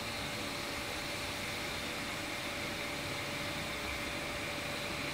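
Steady machine hum and hiss with a thin, constant whine, from the VFD-driven welding manipulator turning the pipe at a slow, even speed.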